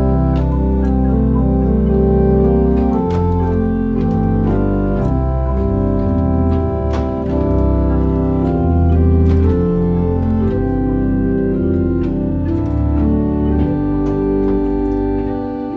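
Small 11-rank Rieger tracker pipe organ playing a piece: sustained chords over a low pedal bass, the harmony changing every second or so.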